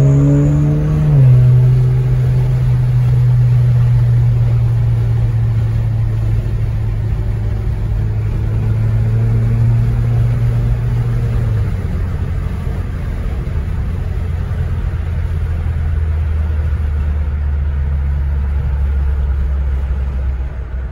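Car engine running steadily with road and tyre noise, heard from inside the car's cabin; the engine note drops a step about a second in and again about halfway through.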